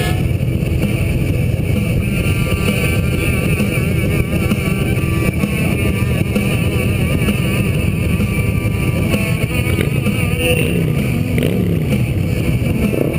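Motorcycle engine running steadily at cruising speed, heard from the rider's seat with wind rumbling over the microphone. Near the end a changing engine pitch can be heard as the bike slows.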